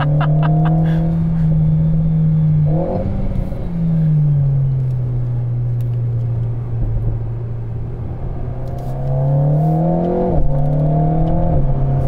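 Alpine A110's 1.8-litre turbocharged four-cylinder engine heard from inside the cabin while driving, its note rising and falling with the throttle. Near the end it climbs and then drops sharply at a gear change.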